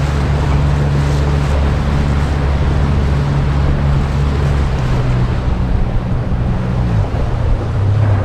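Boat motor running with a steady low hum, with wind buffeting the microphone and water noise; the engine's pitch shifts in the second half.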